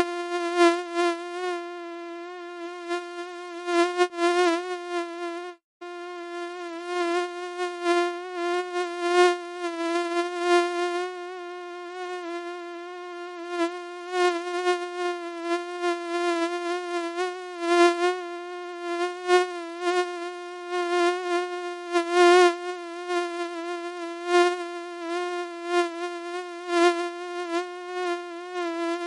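Mosquito whine from its beating wings: a steady, high buzzing tone with many overtones that wavers slightly in pitch and loudness, cutting out for a moment about six seconds in.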